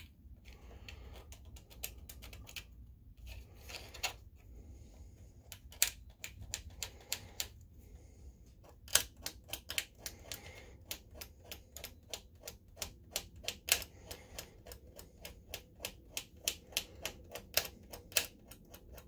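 A diamond Dremel cutoff disc, held in the fingers and not spun by a tool, scraped by hand across a flat ribbon cable to strip its plastic insulation and bare the wires. The strokes make sharp clicking scratches, scattered at first, then coming quickly at about three a second from about halfway through.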